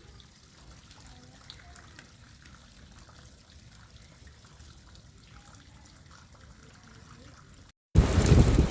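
Faint trickling water. Near the end a cut brings in a loud rushing noise.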